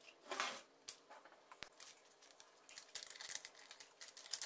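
Faint kitchen handling sounds: a soft scrape about half a second in as flour is tipped into the bowl, a couple of sharp clicks, then light crinkling from a paper baking-powder sachet being handled and opened near the end.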